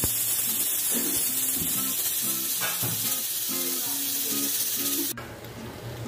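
Pressure cooker hissing steadily as steam escapes from its weighted valve, cutting off suddenly about five seconds in. Background music plays throughout.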